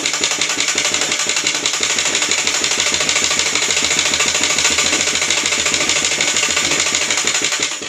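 Treadle sewing machine running fast with a rapid, even clatter, its balance wheel spinning a bobbin held on a screwdriver tip against it to wind thread tightly. It stops suddenly near the end.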